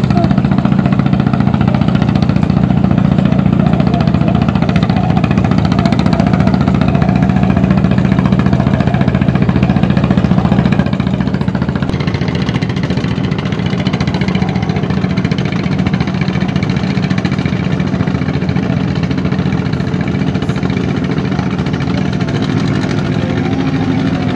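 A fishing boat's inboard engine running steadily, its level dropping a little about eleven seconds in.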